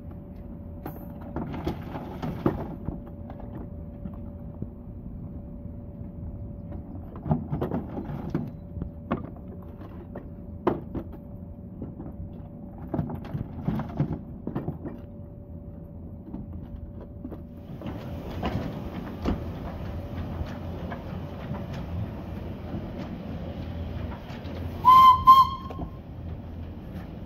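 Coal briquettes clattering in bursts as buckets are tipped into a narrow-gauge steam locomotive's bunker. About two-thirds of the way through, a steadier rushing noise sets in as the locomotive moves off. Near the end, its steam whistle gives two short blasts, the loudest sound.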